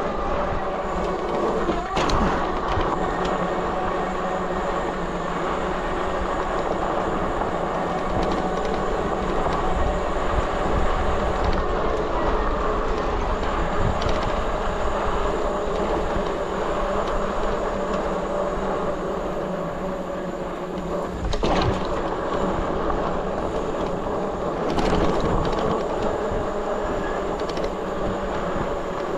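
Electric bike riding over a dirt road: a steady electric-motor whine over tyre noise and the rattle of the bike and its cargo crate, with a few sharp knocks from bumps.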